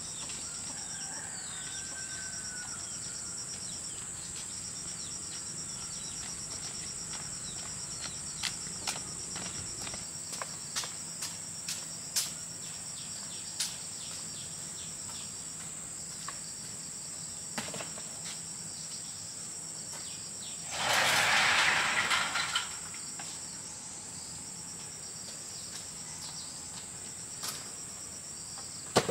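Steady high-pitched insect chorus of crickets, with scattered light clicks and knocks and one louder noisy burst of about a second and a half roughly two-thirds of the way in.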